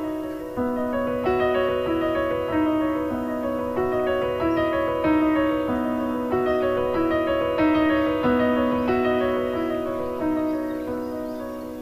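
Background piano music: a slow, gentle melody of sustained notes over repeating chords.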